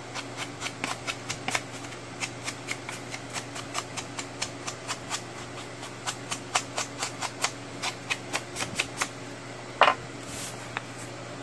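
Scissors snipping through a book page in quick short cuts, about four sharp snips a second, followed by a single louder knock near the end. A steady low hum runs underneath.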